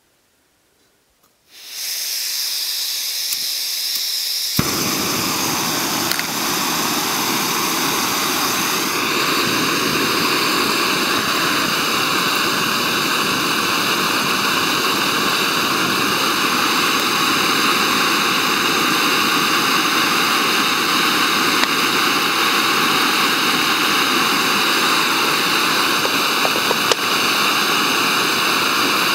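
Small backpacking gas canister stove being lit. The gas hisses as the valve is opened, and about three seconds later the burner catches and burns with a steady rushing hiss.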